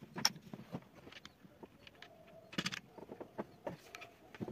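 Small clicks and knocks of hands handling a jointed wooden lamp arm, fitting a metal screw and washer into one of its pivot joints and moving the wooden sections. The taps come closer together a little past halfway.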